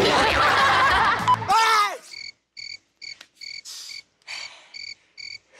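Background music and voices for about a second and a half, then they cut off. A cricket chirps in short, evenly spaced chirps, about two a second.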